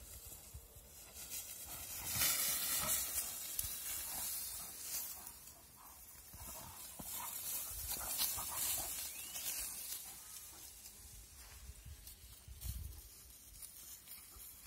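Two dogs play-fighting in dry grass: scuffling and rustling through the grass, with growling. It is loudest a couple of seconds in and again about halfway through.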